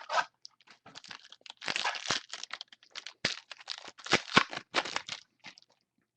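Trading-card pack wrapper being torn open and crinkled in the hands, an irregular run of crackles and rustles that is busiest in the second half.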